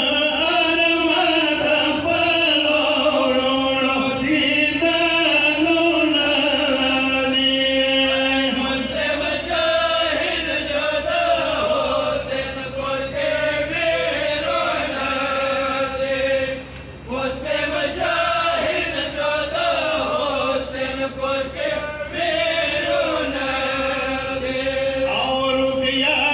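A group of men chanting a Pashto nauha (matam lament) into microphones, in long held, wavering lines, with a brief break about two-thirds of the way through.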